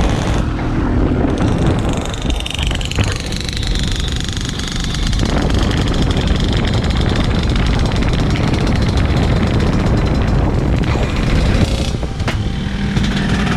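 A Vespa Sprint V's 215cc performance two-stroke engine running, its pitch rising and falling as it is revved.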